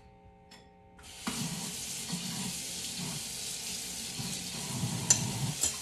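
Kitchen tap turned on about a second in, water running steadily into the sink, with a couple of light clinks near the end.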